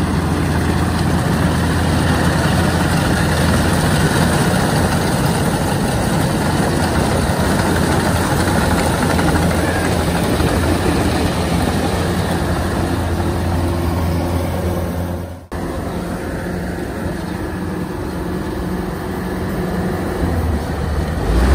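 Kubota DC-105X combine harvester running at work: a steady, loud low diesel drone under a dense clatter of the threshing and cutting machinery. The sound breaks off for an instant about fifteen seconds in and then carries on.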